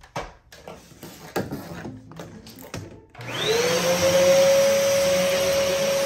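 Vacuum cleaner switched on about three seconds in: its motor spins up with a rising whine and settles into a steady, loud run. A few knocks and clicks come before it starts.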